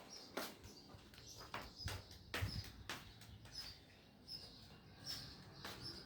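Faint, irregular short bird chirps, mixed with scattered clicks and a few low knocks.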